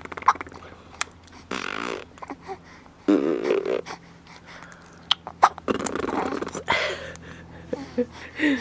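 Mouth-made fart noises: lip buzzes and raspberries blown several times in turn, a woman's and a baby's, the baby trying to copy hers.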